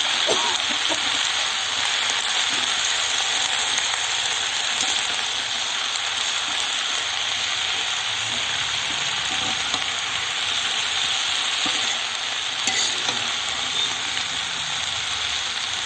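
Malabar spinach, vegetables and chana dal sizzling in hot oil in a kadai, a steady frying hiss, while a spatula stirs them.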